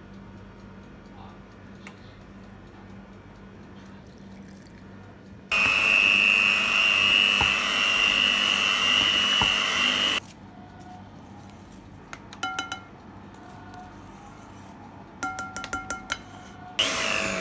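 Electric hand mixer beating cake batter in a glass bowl: about five seconds in it starts with a loud, steady high whine, runs for about five seconds and stops. A few short, ringing clinks of the beaters against the glass bowl follow, and the mixer starts up again near the end.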